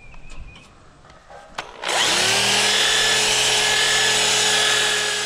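Electric drill with a wire wheel brush starting up about two seconds in, spinning quickly up to speed and then running steadily as the wire wheel scours rust and dirt off a steel mower deck.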